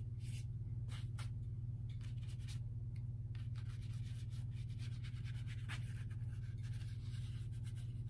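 Watercolour paintbrush stroking and scrubbing across damp watercolour paper: a run of short, soft scratchy strokes, over a steady low hum.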